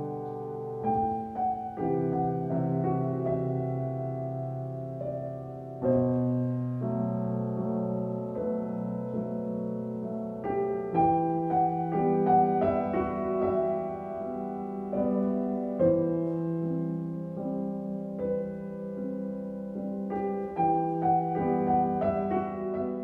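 Slow piano music of held chords and single notes, a new note or chord every second or so, growing fuller and busier from about halfway through.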